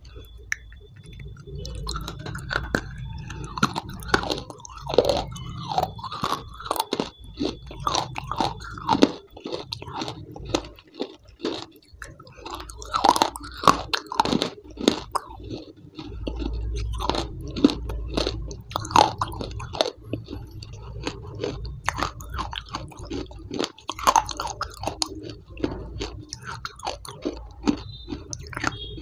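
Close-miked crunching and chewing of hard food, with many sharp crunches one after another.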